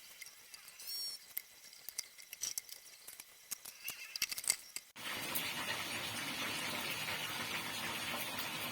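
Kitchen sounds: scattered light clicks and taps of utensils, then, starting suddenly about five seconds in, a steady even hiss that cuts off at the end.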